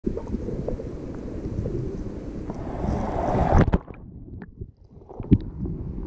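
Creek water splashing and flowing around a camera held at the surface of a shallow creek. About three and a half seconds in, the sound turns suddenly muffled and quieter as the camera goes under the water, with a few faint clicks before the low water noise builds again.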